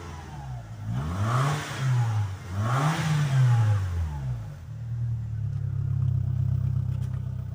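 VW Gol G3 1.0 16-valve engine revved three times through a homemade exhaust tip and muffler, each blip rising and falling with a hissy whoosh on top, the last the highest. The owner calls it a turbo sound. It then settles back to a steady fast idle.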